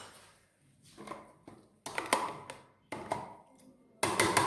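A spoon clicking and scraping against a small container as ground licorice root and onion seed powder are scooped and mixed: a few separate taps, then a quick run of sharp clicks near the end.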